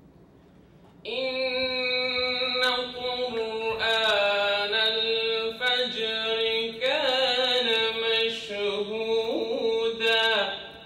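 A man reciting the Qur'an in Arabic in a slow chanted melody. His voice holds one long phrase on sustained notes with ornamented turns, starting about a second in and stopping just before the end.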